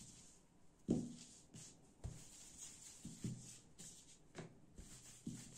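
Wooden rolling pin rolling and knocking on a floured worktop while small rounds of dough are rolled out and handled: a few dull thumps, the loudest about a second in, with soft rubbing and shuffling between them.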